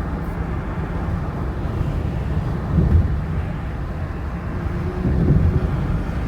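Steady low rumble of a car driving on the road, swelling briefly about three seconds in and again near the end.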